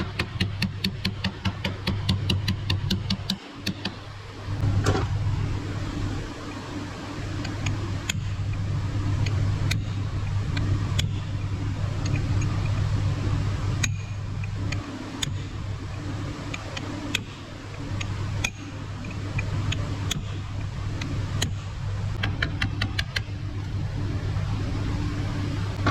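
Workshop sounds of hand tools on metal steering parts: a run of rapid clicks, about four a second, for the first three seconds, then scattered sharp clicks and knocks over a steady low hum.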